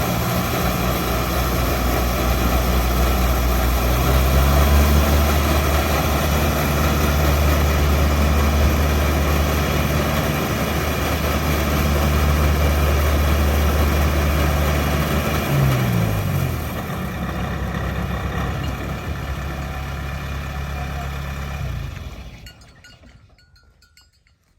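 Diesel engine of a rice combine harvester running steadily, speeding up about four seconds in and slowing down again about sixteen seconds in. It shuts off about twenty-two seconds in and the sound dies away.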